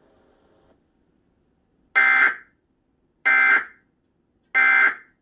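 Emergency Alert System end-of-message (EOM) digital data bursts: three identical buzzing bursts, each about half a second long and about 1.3 s apart, signalling the end of the alert broadcast.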